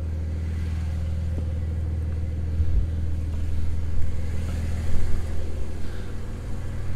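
Porsche 992 Carrera S's 3.0-litre twin-turbo flat-six, warm and idling steadily through its sports exhaust, heard first from the cabin and then through the open driver's door. There are a few soft bumps in the second half.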